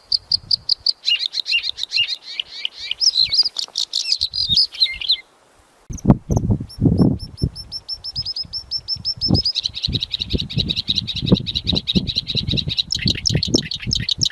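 A black sunbird ('kolibri hitam') singing a fast series of high chirping notes and trills. It breaks off about five seconds in and starts again a second later. Low thuds sound under the song in the second half.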